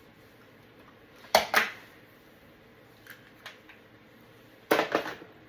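Hard objects being handled on a workbench: two sharp clacks about a second and a half in, a few faint ticks, then another short cluster of knocks near the end.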